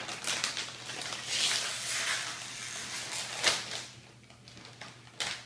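Crinkly potato chip bag being pulled open and handled: a dense run of crackling, loudest in the first three and a half seconds, with a sharp crackle about three and a half seconds in and another short burst near the end.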